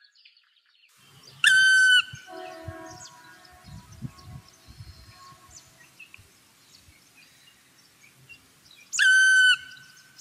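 Two loud, short whistle notes about seven and a half seconds apart. Each drops quickly onto one steady high pitch and holds it for about half a second. Faint steady tones and small chirps sound in the background between them.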